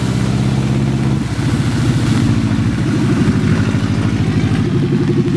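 Car engine running hard under load, its pitch dropping about a second in, then climbing slowly and stepping up again near the end as the revs change.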